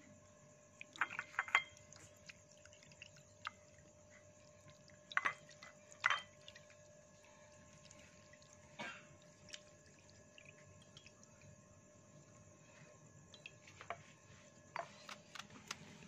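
Water dripping and splashing lightly, a few scattered sharp drops and small knocks, the loudest a cluster about a second in and two more about five and six seconds in, over a faint steady hum.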